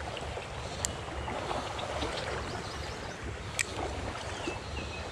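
Small creek running steadily over a gravel bed, with a low rumble on the microphone and two sharp clicks, about a second in and again about three and a half seconds in.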